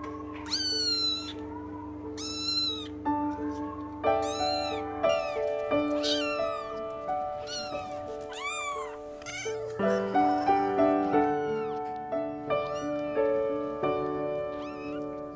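Kittens mewing over background music: a string of short, high-pitched mews, about one a second, each rising and falling in pitch.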